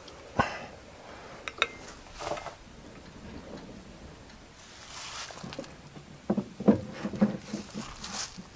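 Scattered clicks, taps and light knocks of parts being handled at a portable sawmill, sparse at first and busier near the end.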